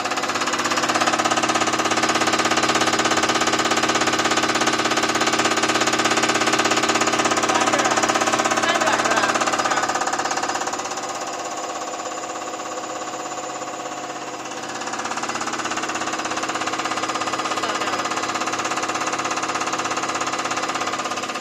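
CR966 common rail test bench running an injector test: its pump drive runs steadily while the clamped diesel injector fires in a fast, even ticking. The level drops a little for a few seconds past the middle, then rises again.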